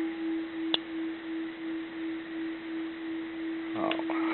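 Bronze Japanese Buddhist temple bell ringing on after a light strike: one steady low hum-tone that pulses about three times a second as it slowly fades. A higher overtone dies away early, and a small sharp click sounds just under a second in.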